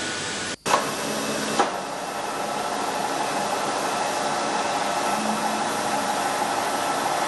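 Steady whirring hiss of a pneumatic valve grinder's air motor running. The sound drops out for an instant about half a second in, and two light metal clicks follow within the next second.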